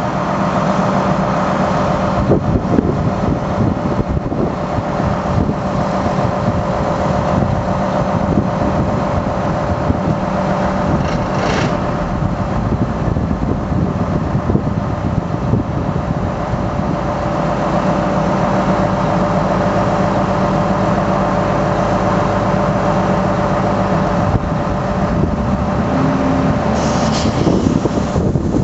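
Liebherr LRB 125 piling rig's diesel engine running steadily with a constant hum and a higher steady tone while its hydraulics move the leader mast. Two short hisses come about a third of the way in and again near the end.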